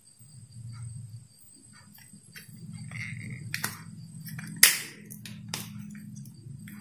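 Light plastic clicks and taps from a blender's push-button speed-switch block being handled and fitted back into the plastic base, the sharpest click a little past halfway. A low steady hum runs underneath.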